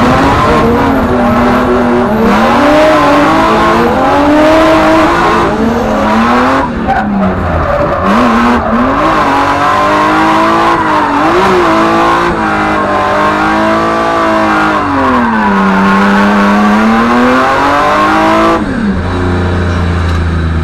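A drift car's engine heard from inside the cabin, revving hard with the revs swinging up and down constantly, over tyre squeal. Near the end the revs fall away suddenly to a low, steady idle.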